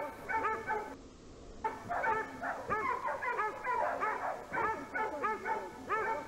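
Boar-hunting dogs yelping in quick, overlapping cries as the pack runs past, with a brief lull about a second in.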